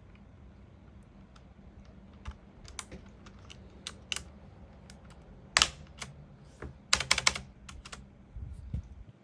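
Mechanical keyboard keys clicking at an irregular pace, with a quick run of several clicks about seven seconds in, as keycaps are pressed back onto the switches and the keys are pushed.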